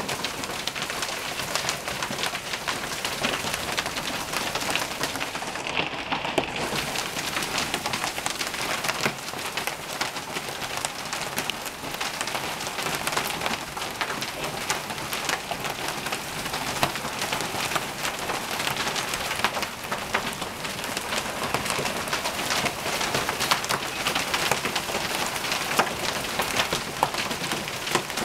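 Hailstorm: hailstones pelting down and striking hard surfaces in a dense, continuous clatter of countless small impacts, holding steady throughout.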